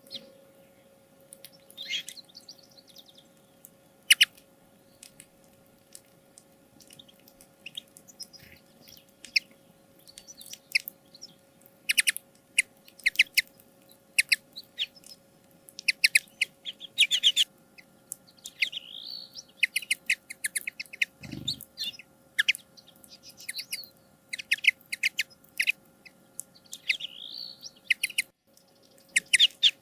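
Common linnets calling: many short chirps and twitters, some in quick runs, over a faint steady hum.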